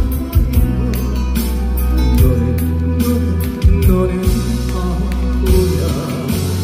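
Korean trot song playing loud over the PA, with a heavy bass line and a regular drum beat under sustained melody lines.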